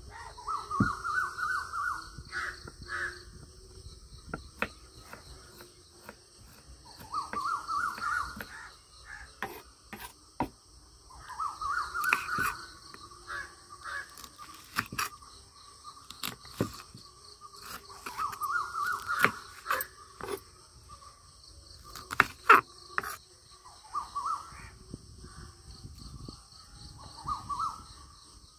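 Crows cawing, a run of several harsh caws about every five seconds, over a steady high insect buzz, with scattered sharp knocks, one especially loud a little past the middle.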